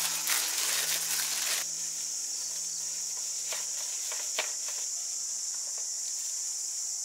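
Steady high-pitched buzzing of insects, with a few light clicks around the middle.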